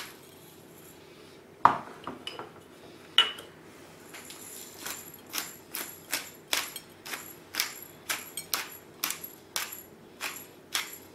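A hand pepper mill grinding black pepper, its crackling grind strokes coming at about two a second, preceded by two sharp knocks in the first few seconds.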